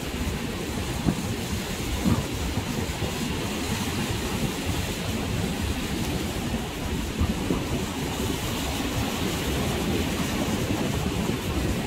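Sea surf breaking on a sand beach, mixed with wind buffeting the microphone as a steady low rumble, with a few brief bumps.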